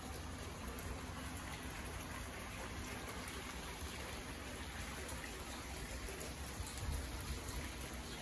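Small fountain jet splashing steadily into an ornamental pond, a continuous patter of falling water, over a low steady rumble.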